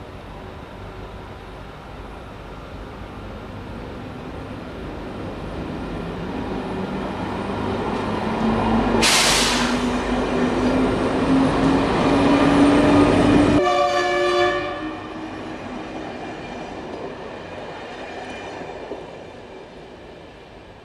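Electric multiple unit passing close by, its motor whine rising slowly in pitch as it speeds up, with a brief sharp hiss about nine seconds in. A horn blast of about a second comes as it goes by, then the train sound dies away.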